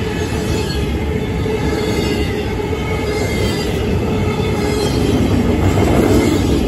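CSX double-stack intermodal freight train's well cars rolling past close by: a loud, steady rumble of steel wheels on rail, with a thin, steady wheel squeal over it, growing slightly louder near the end.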